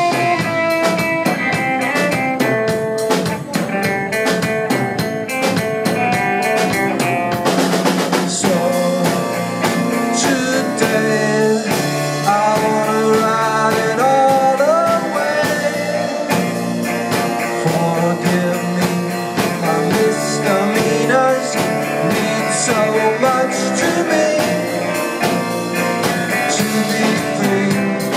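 Live band playing an instrumental break: drum kit keeping a steady beat under a strummed acoustic guitar and a second guitar, with a bending lead line around the middle.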